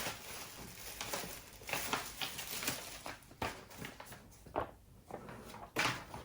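Irregular rustling and light clicks and knocks of packaging and small parts being handled while unpacking.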